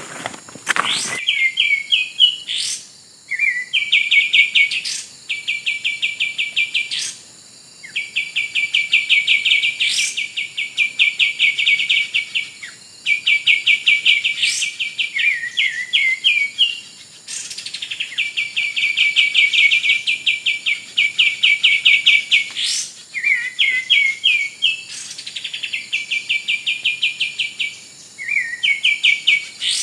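Bird song: a long series of rapid trills, each held for a second or two at an even pitch, broken by short rising notes and brief pauses.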